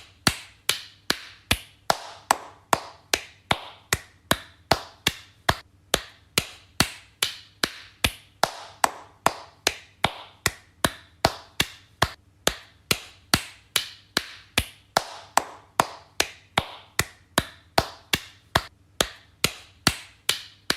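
Slow hand clapping: single sharp claps at an even pace of about two a second, each dying away quickly.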